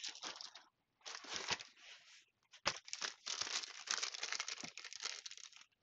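Clear plastic packaging bag crinkling and rustling in the hands, in irregular bursts, with one sharp click about two and a half seconds in.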